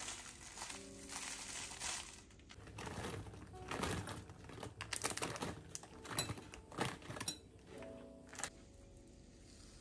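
Coconut shavings poured onto cottage cheese in a glass bowl with a soft hiss, then raisins tipped in: a few seconds of quick soft patters and ticks. Faint background music notes near the start and end.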